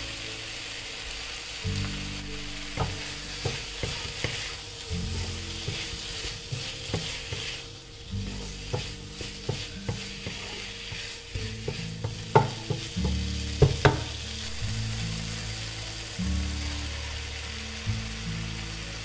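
Stir-frying in a pan: a steady sizzle with frequent clicks and knocks of the spatula against the pan, the sharpest a few strikes about two-thirds of the way in. Low background music runs underneath.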